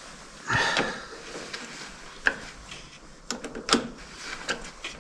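Sharp metallic clicks and clinks of a wrench being worked on a tractor battery's cable terminal, with a short scraping rattle about half a second in.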